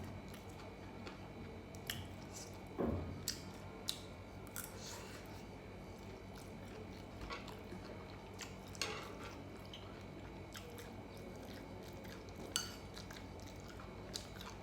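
A person chewing food close to the microphone, with scattered wet clicks and smacks and a couple of soft thumps, over a low steady hum.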